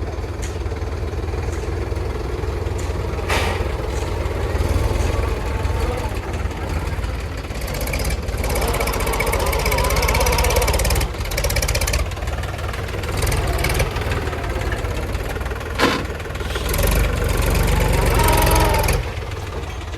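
JCB 3DX backhoe loader's diesel engine running steadily while it digs and loads. The engine grows louder twice, for a few seconds each time, as it works under hydraulic load. A single sharp knock sounds about three-quarters of the way through.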